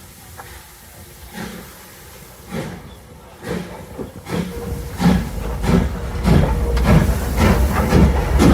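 Steam locomotive pulling away, its exhaust chuffs starting slow and quickening, about one a second at first and then two or three a second. The chuffs grow louder as it gets going, with a low rumble of the train underneath.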